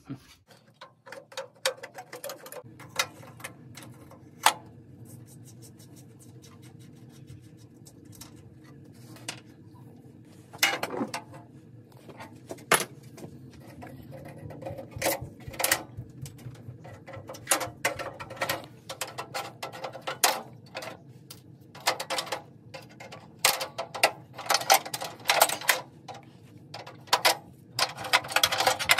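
Metal hand tools clicking and clanking on engine parts in irregular bursts, over a steady low hum that starts a few seconds in.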